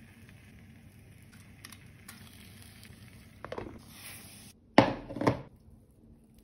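Knife chopping on a cutting board: one stroke about three and a half seconds in, then two louder, sharper ones half a second apart a little later.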